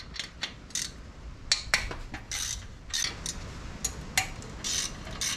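Hand ratchet clicking in a dozen or so short, irregular strokes, with light metal-on-metal clinks, as exhaust manifold bolts are backed out; the bolts turn freely and are not seized.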